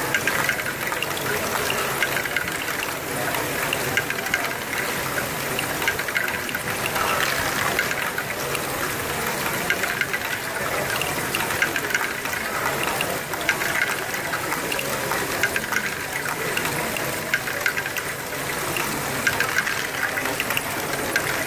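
Lego Great Ball Contraption modules running: many small plastic balls clattering through a motorized step lifter and down ramps, a busy, steady rattle of small clicks.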